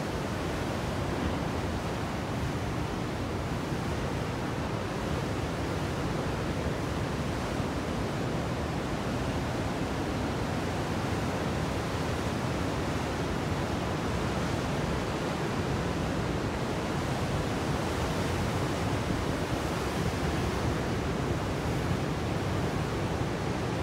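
Pacific Ocean surf, a steady, unbroken wash of breaking waves with no single crash standing out.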